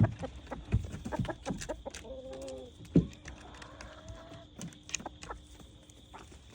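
Chickens clucking with short calls, among a few sharp knocks and thumps, the loudest at the very start and about three seconds in.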